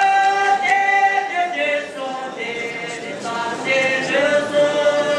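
A choir of boys and girls singing without accompaniment, holding long sustained notes with short breaks between phrases.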